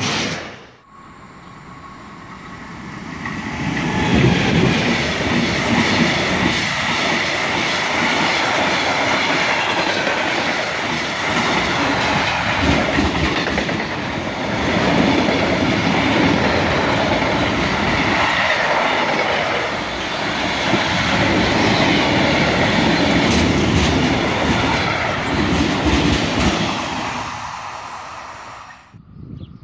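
Long freight train of covered hopper wagons passing close by: a steady rumble and clatter of wheels over the rails, with a high squeal from the wheels. It builds up over the first few seconds and fades near the end.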